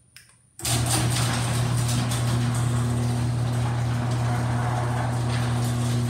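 LiftMaster garage door opener starting about half a second in and running steadily as it lowers a metal sectional garage door: a steady motor hum with the rattle of the door rolling down its tracks.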